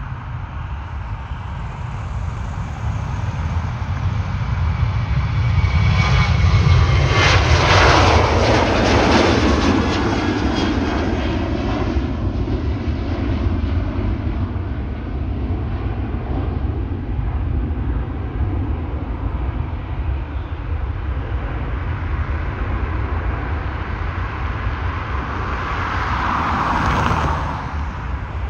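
Boeing 737-800's twin CFM56-7B turbofan engines at takeoff power as the airliner rolls past and climbs away: a rumble that builds to its loudest about seven seconds in, with a whine falling in pitch as it goes by, then stays a steady rumble as it climbs.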